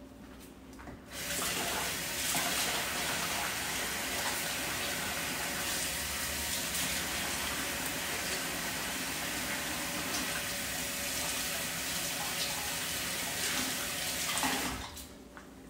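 A water tap runs steadily while hands are washed under it. It is turned on about a second in and shut off near the end.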